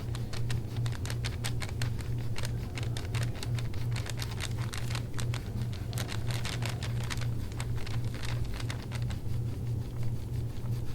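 Hands massaging a patient's back during a chiropractic session: quick, irregular small clicks and crackles of skin and tissue, over a steady low hum.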